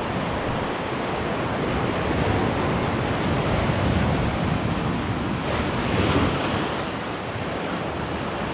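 Sea surf washing against a rocky shore, with wind on the microphone; the surge swells and is loudest about six seconds in.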